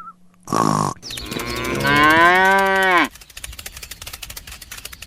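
A cow mooing once, about two seconds long, with the pitch dropping as it ends. It follows a short noisy burst and gives way to faint rapid ticking.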